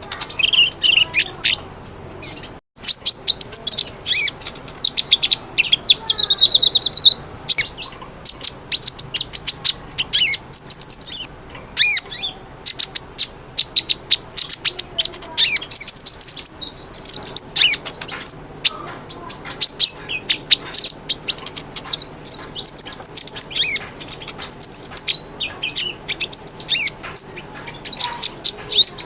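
A kolibri ninja sunbird singing vigorously in a rapid, near-continuous string of high, thin chirps and twittering trills, with only brief pauses.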